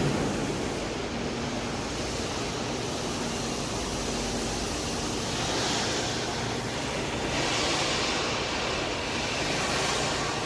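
Steady rumbling hiss of a running vehicle engine with a faint low hum, and wind-like noise that grows brighter about halfway through.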